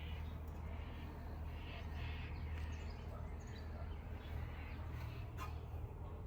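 Steady low hum with faint bird calls in the background, and a single sharp click a little after five seconds in.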